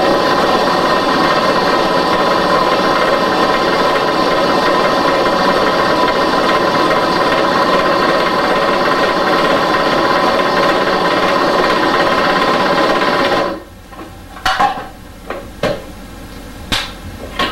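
Food processor running at high speed with its metal blade, mixing flour and boiling water into dough. It cuts off about four seconds before the end, followed by a few short knocks and clicks.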